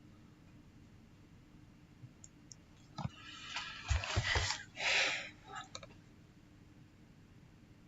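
Clicks, light knocks and short scraping of plastic laptop parts being handled and fitted together, clustered between about 3 and 6 seconds in.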